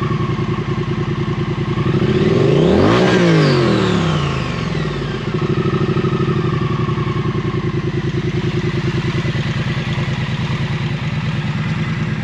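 Triumph Street Twin's 900 cc parallel-twin engine idling with an even, pulsing beat. About two seconds in it is revved once, rising in pitch and falling back to idle.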